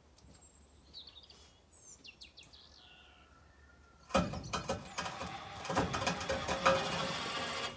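Faint bird chirps, then about four seconds in a loud, fast metallic ratcheting starts and keeps going: a ratchet being worked hard to tension the cable of a makeshift pulley rig hauling a stuck round hay bale.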